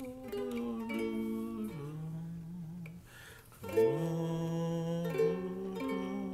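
Homemade cigar box ukulele playing chords in G major, the notes changing every second or so, with a break about three seconds in and then a strong strum. A man's voice hums the melody along with it.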